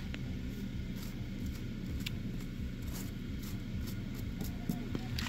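Car engine idling steadily while it warms up, a low even hum, with a few faint light clicks over it.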